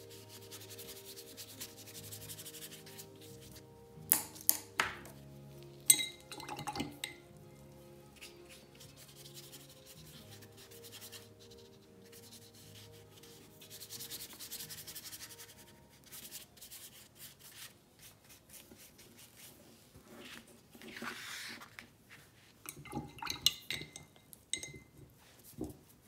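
Paintbrush scrubbing acrylic paint onto paper in short stretches, with a few sharp clinks and taps about four and six seconds in and again near the end. Soft background music with sustained notes underneath.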